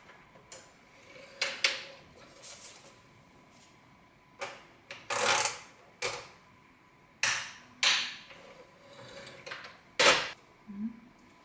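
Rommelsbacher KG 2020 contact grill being handled: its hinged top plate lifted open and shut, with about eight sharp clacks and knocks of metal and plastic. The loudest knocks come near the start and about ten seconds in, as the lid comes down.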